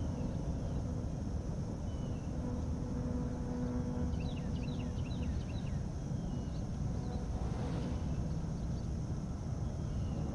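A low steady rumble with a faint held hum that stops about five seconds in, and a quick run of bird chirps about four seconds in.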